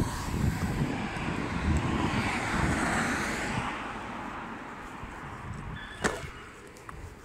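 Wind buffeting the microphone and rolling rumble while riding a Onewheel electric board along a street, with a rush of road noise swelling and fading midway. The noise dies down in the second half, and a single sharp click comes about six seconds in.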